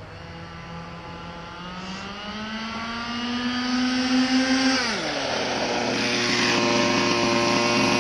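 Losi DBXL 1/5-scale RC buggy's two-stroke gas engine running under throttle as it drives closer. The engine note climbs slowly for several seconds, drops sharply about five seconds in as the throttle comes off, then runs steadily at lower revs, growing louder as the buggy approaches.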